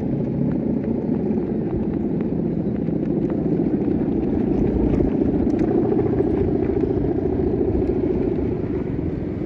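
Steady buzzing drone of a guangan, the hummer bow strung across the top of a big Balinese bebean kite, vibrating in a strong wind.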